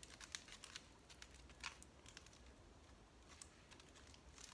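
Aluminium foil crinkling faintly as hands squeeze and shape it: scattered small crackles at irregular intervals, the clearest a little under two seconds in.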